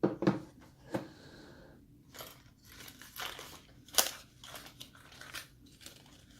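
Handling noise from unpacking small parts: an irregular run of sharp clicks and taps with light plastic crinkling. The loudest clicks come at the very start and about four seconds in.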